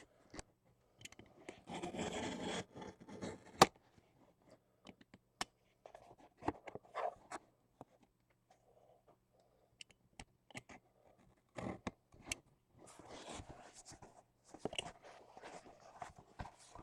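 Cutting and working open a sealed cardboard box: intermittent scraping and rustling with scattered sharp clicks, the loudest about three and a half seconds in, and a short quiet pause a little past halfway.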